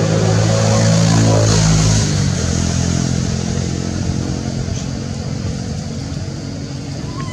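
Engine of a passing motor vehicle, loudest in the first two seconds, then fading steadily.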